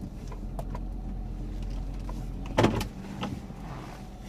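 Steady low hum of a minivan running, heard from inside the cabin, with a few faint clicks. A single short, sudden knock about two and a half seconds in is the loudest sound, followed by a lighter one.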